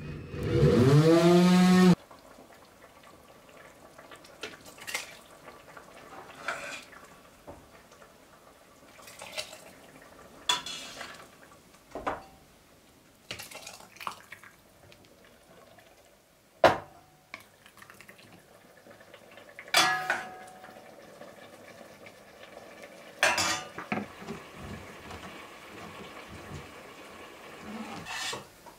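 A loud, drawn-out pitched call at the start, cut off abruptly about two seconds in. Then a stainless pot, a spoon and glass jars clink and knock at irregular intervals as hot red pepper sauce is ladled through a plastic funnel into the jars.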